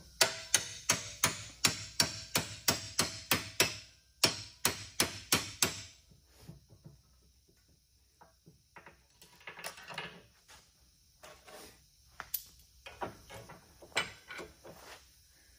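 Hammer blows on a hand-held tool set against the old wooden piece stuck in a rake's metal tang, clamped in a vise: a fast run of about eleven sharp strikes at roughly three a second, a short pause, then about six more. Faint clicks and handling noise follow. The wood does not come out.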